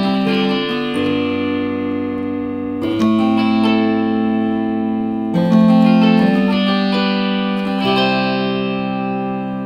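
Baldwin electric harpsichord played as a keyboard: plucked chords struck about every two to two and a half seconds, each left to ring and fade, with lighter single notes in between.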